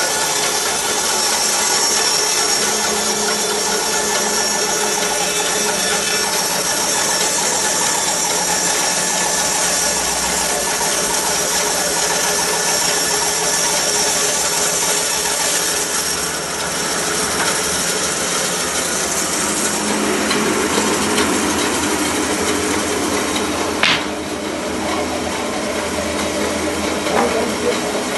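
A woodworking power tool running steadily, a dense mechanical whine with hiss. Its sound shifts lower and rougher about two thirds of the way through, and a sharp click comes soon after.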